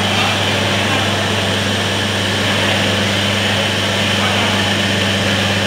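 Steady hum of a diesel multiple unit standing at the platform with its engines idling, holding an even low drone.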